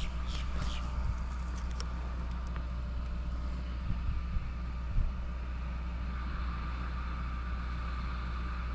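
Steady low motor hum, with a few short bird chirps in the first second and a couple of brief knocks around the middle.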